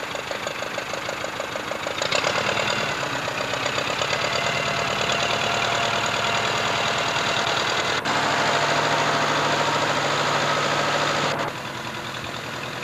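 Farm tractor engine running as the loader tractor is driven. It picks up about two seconds in, runs harder from about eight seconds, then drops back to idle near the end.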